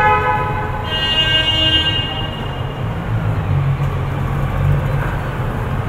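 Vehicle horns honking in a road tunnel, heard from inside a car: one horn sounds at the start and a higher-pitched horn follows at about a second in, lasting about a second. After that, a low engine rumble from the traffic in the tunnel.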